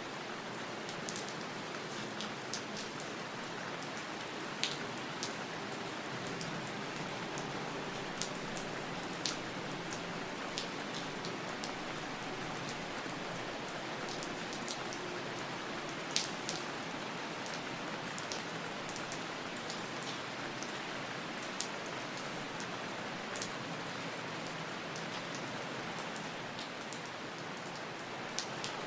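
Steady rain falling on a surface, an even hiss with scattered sharp ticks of individual drops landing close by.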